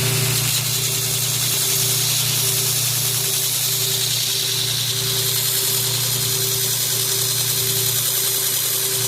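A steady motor hum with an even hiss, running without change.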